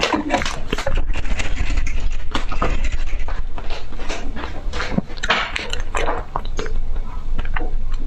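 Close-up biting and chewing of crackly ice cream: a rapid run of crisp crunches and crackles as the hard coating breaks up in the mouth.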